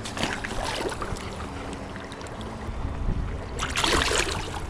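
Hands splashing into a shallow river as a chub is released: light splashing near the start, then a louder splash of water about three and a half seconds in as the fish is let go.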